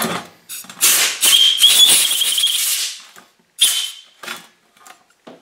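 Compressed-air blow gun clearing aluminium drill chips out of a freshly drilled hole: one long hissing blast with a whistling tone about a second in, then a few short puffs.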